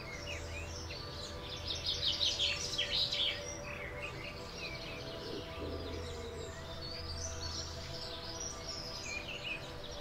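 Several birds chirping and calling, with a dense run of quick high chirps and trills about two seconds in, over faint steady background tones.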